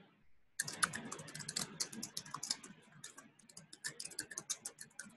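Typing on a computer keyboard: a rapid run of keystrokes that starts about half a second in.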